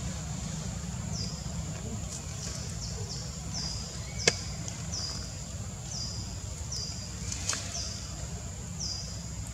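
Forest ambience: a steady high insect drone with a short, slightly falling high chirp repeated about every half second, over a low rumble. A single sharp click comes about four seconds in.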